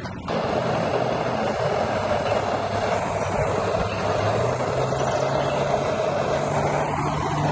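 Bernzomatic hand torch burning steadily, coming on suddenly just after the start, its flame played over the cut strand ends of a three-strand splice to melt and seal them.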